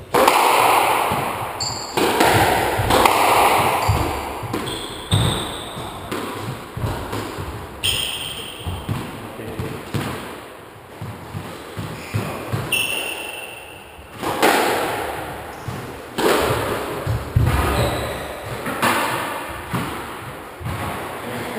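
Squash rally: the ball is struck by rackets and hits the court walls about every second or two, each sharp hit ringing on in the enclosed court, with short high squeaks of shoes on the wooden floor between hits.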